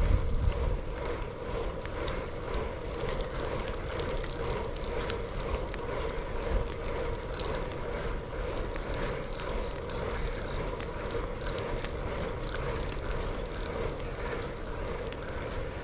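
Bicycle being ridden: a steady rush of tyre and wind noise with a faint, steady whir.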